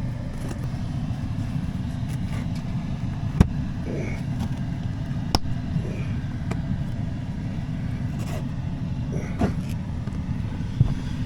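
A few sharp clicks and knocks from handling the car's floor mats and plastic console trim panels, the loudest about three and a half seconds in, over a steady low rumble.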